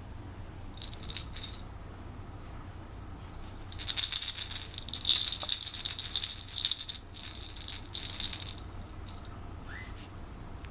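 A rattle in a small plush toy is shaken in bursts, making a bright jingling rattle: a short shake about a second in, then longer, louder shaking through the middle. Near the end there is one short high squeak.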